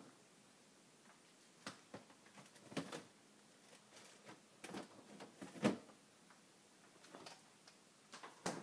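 Scattered light knocks and clicks of things being handled and put away, irregularly spaced, the loudest about two thirds of the way through.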